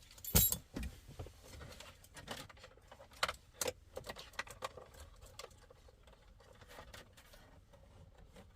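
Scattered light clicks and small rattles of hand handling, with the sharpest clicks about half a second in and twice more around three and a half seconds in.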